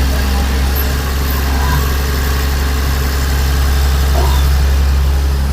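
Heavy diesel engine of mining earthmoving equipment (excavator or dump truck) running steadily with a deep, even hum.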